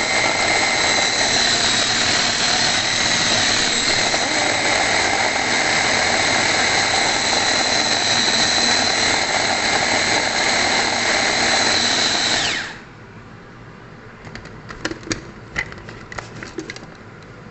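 An electric food processor's motor runs steadily with a whirring whine while chopping ingredients, then switches off about 12 seconds in, its pitch dropping as it winds down. A few light clicks and knocks follow.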